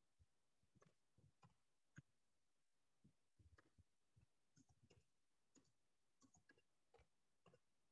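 Faint computer keyboard typing: irregular keystroke clicks, a few a second, with short pauses between runs.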